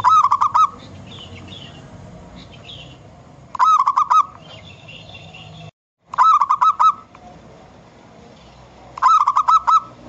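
Zebra dove (perkutut) singing: four short bursts of quick rolling coos, one about every three seconds.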